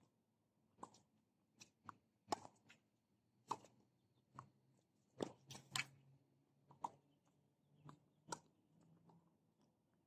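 Tennis balls being struck by rackets and bouncing on a hard court during a rally: a series of about a dozen sharp pops at irregular intervals.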